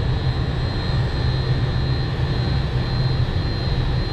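Steady mechanical drone with a low hum and a constant thin high whine, unchanging throughout.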